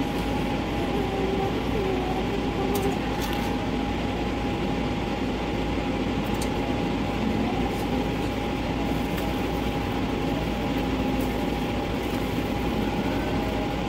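Steady machine-like hum and rush with one constant whining tone, like a kitchen fan running. A few faint clicks of a spatula against the pan sound over it.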